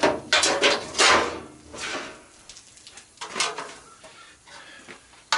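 Washing machine parts being pried and pulled apart by hand: several loud scraping clatters in the first two seconds, then a few quieter knocks and a sharp knock at the end.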